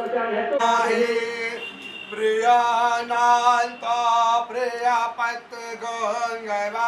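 A man chanting a mantra in a sung style, with long held notes that bend up and down in pitch.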